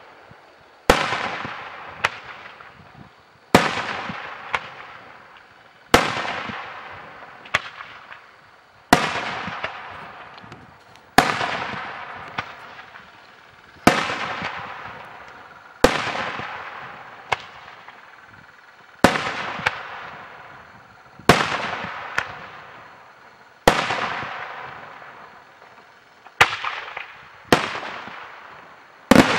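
Daytime fireworks going off in a steady series: a sharp, loud bang every one to two and a half seconds, each trailing off over a second or two.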